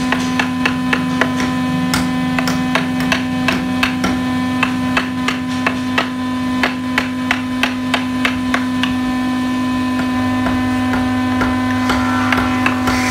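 A wooden mallet tapping a carving chisel into hardwood, about three strikes a second, thinning out for a few seconds late on. A steady hum runs underneath.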